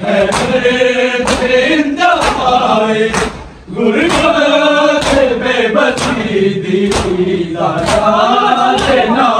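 A noha chanted by many men's voices, with the slaps of matam (open-handed chest-beating) landing together on the beat about once a second.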